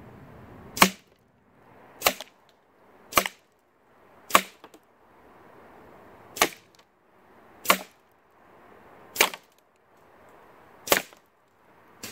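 Edgun Leshiy 2 semi-automatic .22 PCP air rifle firing eight sharp shots, one to two seconds apart.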